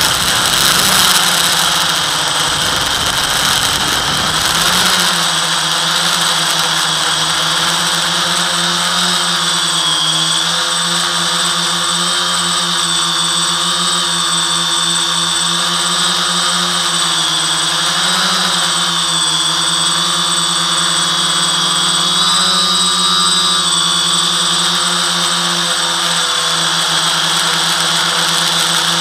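FPV quadcopter's brushless motors and propellers whining steadily, the pitch wavering slightly up and down with throttle. The first few seconds carry a rougher, noisier rush before the tone settles.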